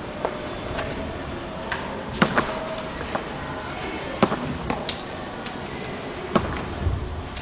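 Sharp knocks and clicks at irregular intervals as a climber moves up an indoor climbing wall, with shoes and hands striking the plastic holds and wall panels. The knocks ring briefly in a large hall.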